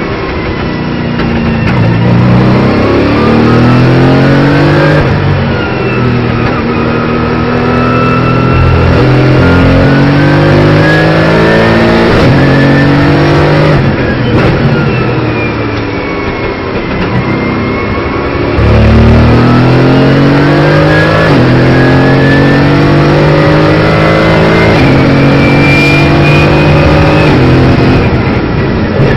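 Mercedes-AMG GT4's twin-turbo V8 at full throttle, heard from inside the cockpit, pulling up through the gears. Its pitch climbs in each gear and falls back at every upshift.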